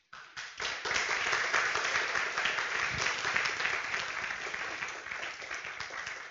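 Lecture audience applauding: dense clapping that starts abruptly, is strongest in the first few seconds, and gradually tapers off.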